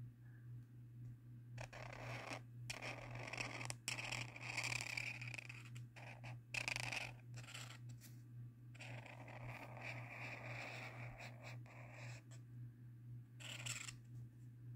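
Felt-tip marker rubbing across sketchbook paper in about five strokes of one to three seconds each, over a steady low hum.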